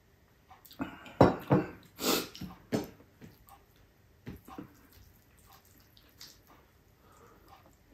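Drinking water from a glass: a few gulps and a loud breath out, then the glass is set down on the table with a knock. After that come soft, scattered small clicks of fingers working food on a plate.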